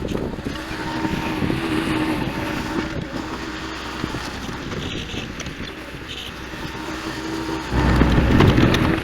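Tractor engine running steadily while moving dirt, with wind on the microphone. It grows louder for about the last second.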